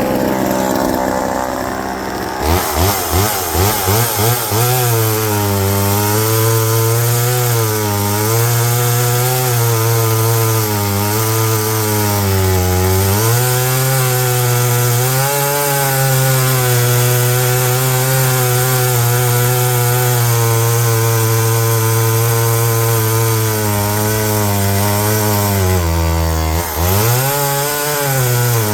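Homelite EZ two-stroke chainsaw cutting wood: after a few quick blips of the throttle about two seconds in, the engine runs at high revs under load, with its pitch dropping twice as the chain bites into the wood. The full-chisel chain bites hard enough to pull the engine's speed down in the cut.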